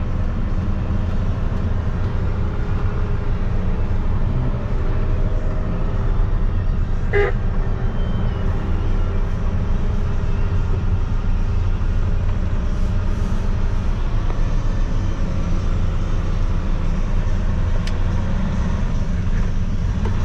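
Tractor engine running steadily while driving, a low even drone, with one brief pitched toot about seven seconds in.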